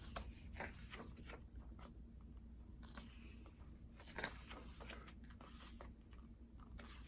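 Faint crinkling and rustling of plastic and paper packaging being handled, with scattered small clicks and a louder crackle about four seconds in.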